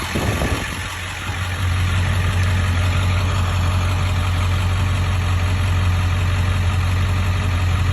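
Ford F-350 pickup's engine running steadily, a low even drone that dips briefly about a second in and then holds level.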